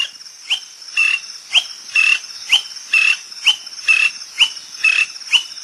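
Greater honeyguide calling: sharp notes repeated about twice a second, alternating a quick rising note with a flat one. A steady high buzz of insects runs underneath.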